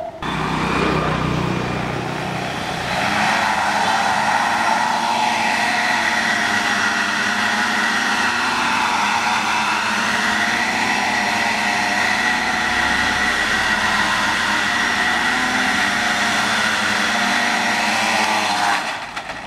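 Four small brushless motors spinning propellers on a homemade quadcopter in hover: a loud, steady multi-tone whine that wavers slightly in pitch and drops away near the end.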